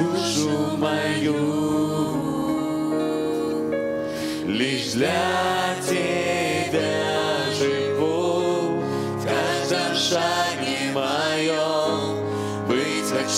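Church worship song sung by several voices over steady instrumental accompaniment, the singing gliding between held notes.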